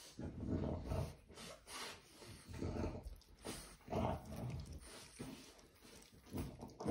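A French bulldog mother and her puppy making short, repeated dog sounds, about one or two a second, as they nuzzle nose to nose and she licks it.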